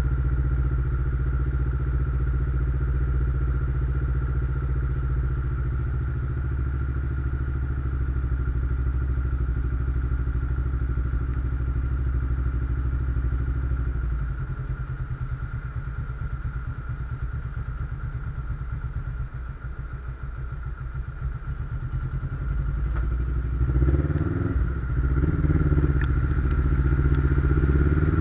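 Suzuki GS500's air-cooled parallel-twin engine idling steadily, then revving up about four seconds before the end as the bike pulls away.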